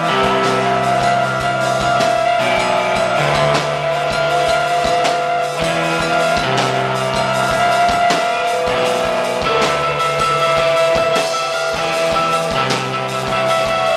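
Live band playing an improvised instrumental jam: electric guitar through a Marshall amp, a Yamaha drum kit with cymbals, and a keyboard. Held notes ring over a low line that changes every second or so.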